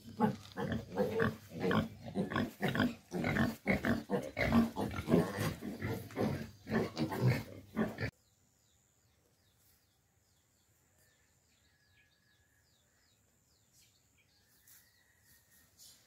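Pigs grunting and squealing in rapid, overlapping calls, cutting off suddenly about eight seconds in to near silence with only faint high chirps.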